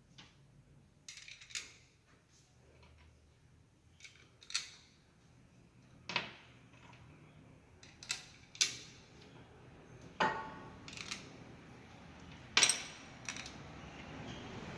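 Scattered metallic clinks and knocks of tools and gearbox parts being handled on a workbench during a manual gearbox rebuild: about ten sharp, separate strikes, the loudest near the end.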